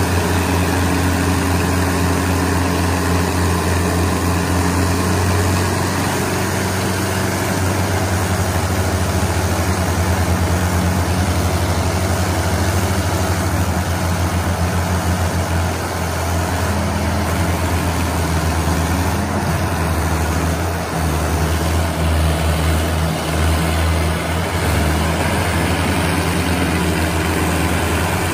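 Heavy diesel tractor engine running with a deep, steady drone; about two-thirds of the way through, the note wavers and pulses unevenly.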